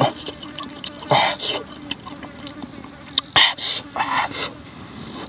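A person eating with his fingers, making loud mouth noises: smacking and breathy huffs in three short bursts. Under them runs a steady, high insect drone.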